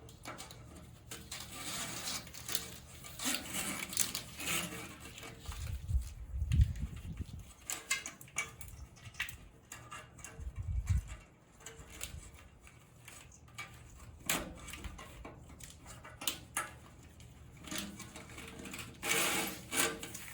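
Hands working a wiring harness through a golf cart's frame: scattered rubbing, clicks and knocks of wires and connectors against the frame, with a couple of dull thumps about six and ten seconds in.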